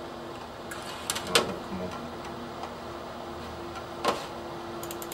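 Steady hum of a DVR safe box's small cooling fans, broken by a few sharp clicks and knocks as a computer mouse and cables are handled at the box, the loudest about a second in.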